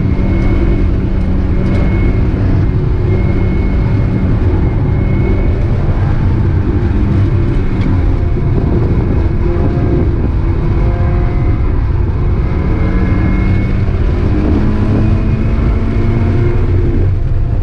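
Mazda Miata's four-cylinder engine heard from inside the car at speed on track, running loud and steady under wind and road noise, its pitch rising and falling in the second half as the driver works the throttle.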